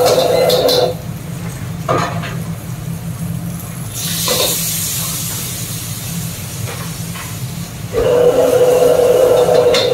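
A gas wok burner runs steadily, goes quiet about a second in when the flame is turned down, and comes back on near the end. About four seconds in, liquid ladled into the hot wok sets off a hiss of sizzling steam that slowly fades. A couple of metal ladle knocks against the wok are heard in between.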